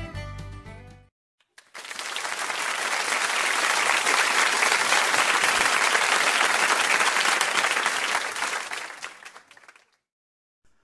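Background music cuts off about a second in; then a crowd applauds for about eight seconds, swelling in and fading out.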